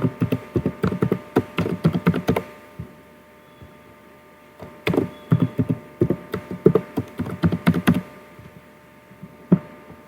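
Typing on a computer keyboard: two quick runs of keystrokes a couple of seconds apart, then a single key press near the end, over a faint steady electrical hum. The two runs fit typing a new user's password and then retyping it to confirm.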